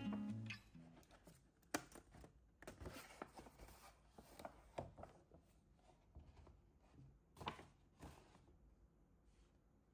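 Quiet handling of a paper shopping bag and a cardboard product box: scattered soft rustles, crinkles and taps as hands reach into the bag and lift the box out, the sharpest a little under two seconds in and again about seven and a half seconds in.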